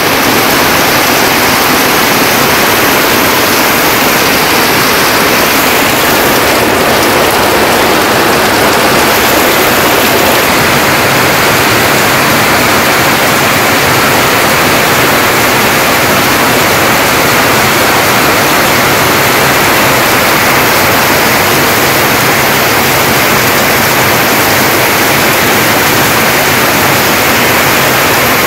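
Heavy monsoon rain pouring down steadily on corrugated tin roofs and foliage, a dense, even hiss with no let-up.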